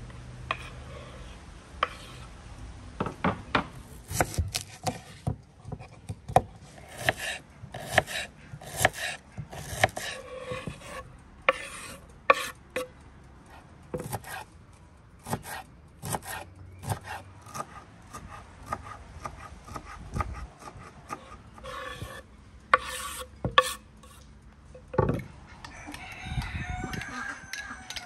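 Kitchen knife chopping tomatoes and fresh herbs on a wooden cutting board, in runs of quick sharp strokes. A rooster crows near the end.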